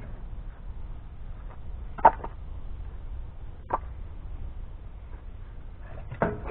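Split firewood pieces knocking together as they are handled and stacked: three sharp wooden clacks, the loudest about two seconds in, the others near four and six seconds in, over a steady low rumble.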